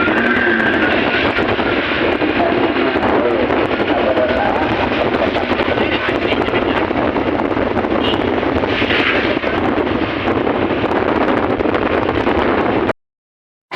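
Steady, loud noise of a moving vehicle on the road, with faint voices under it; it cuts off suddenly near the end.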